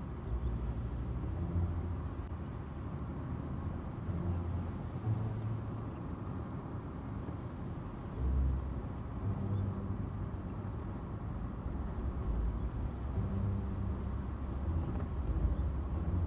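Car driving, heard from inside the cabin: a continuous low rumble of road and engine noise that swells and eases a little.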